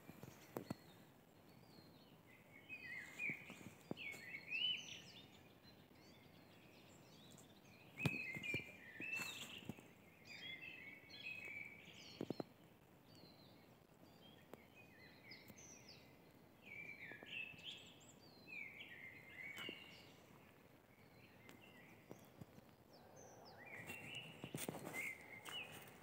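Small birds chirping and twittering in short clusters of quick high notes, on and off throughout, with a few faint knocks between them.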